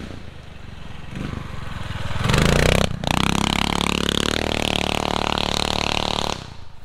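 Predator 212cc single-cylinder engine of a small dirt bike riding along a trail. It grows louder as the bike approaches, is loudest about two and a half seconds in, then runs on steadily before dropping away near the end.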